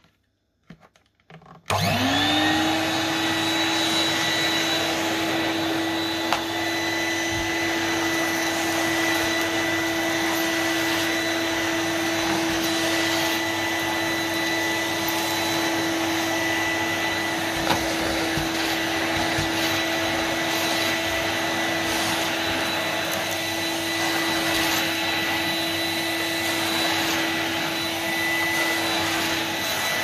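A few faint clicks, then a Numatic NX200 commercial tub vacuum cleaner is switched on about two seconds in. Its motor rises to speed within a fraction of a second, then runs with a steady whine over a rush of suction as the floor tool is pushed over a rug.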